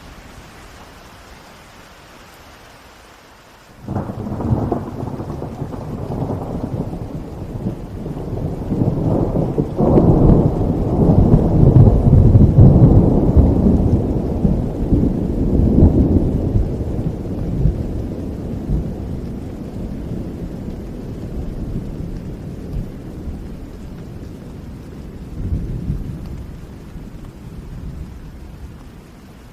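Steady rain, broken about four seconds in by a sudden thunderclap that rolls into a long, deep rumble. The rumble is loudest several seconds later and slowly dies away near the end.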